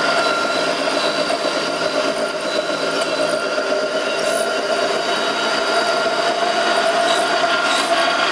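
Peanut butter colloid mill running: a steady, loud machine noise with several high, unchanging tones from the motor and grinding head.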